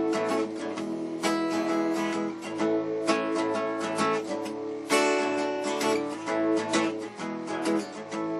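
Acoustic guitar strummed in a country rhythm, an instrumental break between sung verses.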